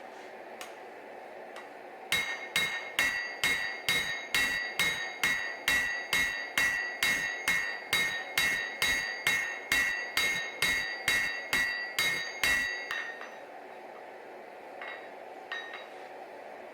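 Cross peen hammer striking hot Damascus steel on the anvil in a steady run of about two and a half ringing blows a second for some ten seconds, drawing out the bevels of a chef knife blade. A few light taps follow near the end.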